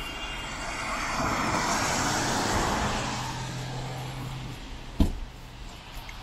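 A vehicle passing on wet pavement: tyre hiss swells and fades over about four seconds with a steady low engine hum under it. A single sharp knock about five seconds in.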